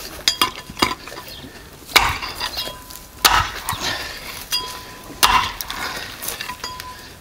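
An axe chopping into a pig's head on a wooden chopping block: three heavy blows, about a second and a half to two seconds apart, with lighter knocks between them.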